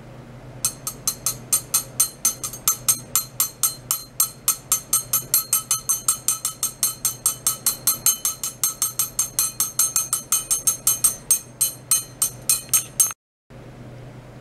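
A fast, even train of sharp, ringing metallic ticks, about five a second, from the pulse-driven ultrasonic probe rig. The ticks cut off abruptly near the end. A steady low hum runs underneath.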